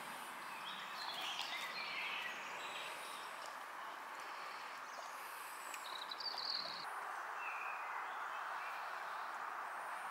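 Steady outdoor background hiss with birds chirping briefly a few times, around a second in, at about six and a half seconds, and near the end.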